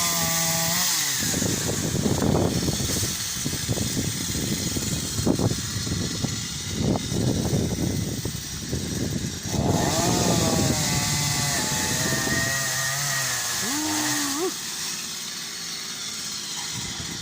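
Two-stroke chainsaw running, revving up and down unevenly as it cuts branches, with a steadier high-pitched run just past the middle and a quick rev near the end.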